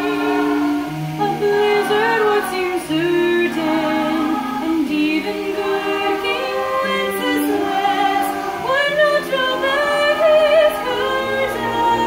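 A teenage girl singing a slow solo song, moving between held notes with vibrato on the longer ones, over steady lower accompanying notes.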